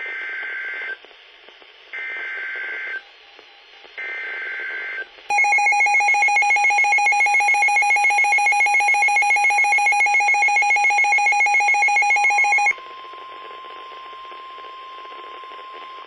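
Weather radio sounding an Emergency Alert System alert: three short bursts of the SAME header's warbling two-note data tones, then a loud alarm tone pulsing rapidly for about seven seconds, then the steady, single-pitched NOAA weather alert tone at lower volume.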